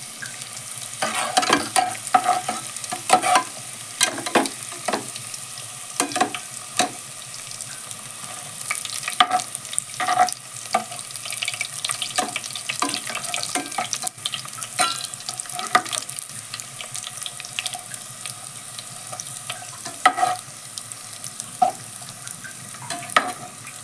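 Spice paste sizzling in hot oil in a pressure cooker, stirred with a metal skimmer spoon. Frequent irregular clinks and scrapes of the spoon against the pot sound over a steady frying hiss.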